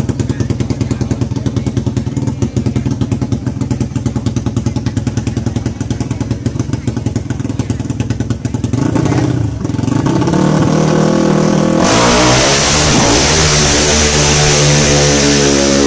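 Modified drag-racing motorcycle engine held at high revs with a rapid, even stutter at the start line. After about nine seconds it launches and accelerates hard, its pitch climbing and stepping through the gears. A loud rushing noise joins about twelve seconds in.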